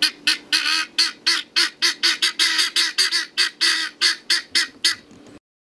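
Guinea fowl calling in a rapid series of short, harsh calls, about four a second, that cuts off suddenly near the end.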